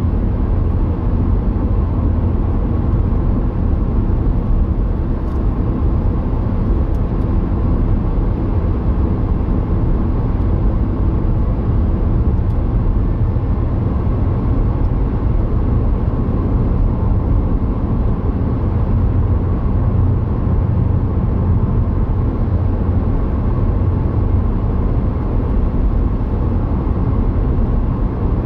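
Car driving at about 55 mph, with steady road and engine noise heard from inside the cabin.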